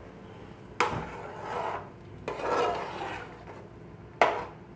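A utensil scraping and knocking in a cooking pot of boiling water: two long scrapes, then a sharp knock near the end.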